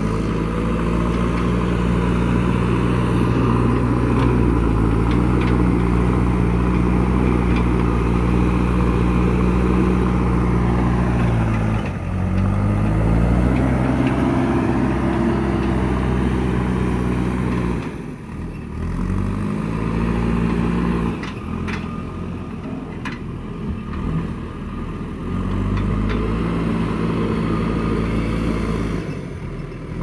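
JCB backhoe loader's diesel engine working under load as it pushes and scoops soil, its pitch rising and falling with the throttle. The engine dips sharply twice, about two-fifths and three-fifths of the way through, then climbs back each time. A few brief clicks come near two-thirds of the way through.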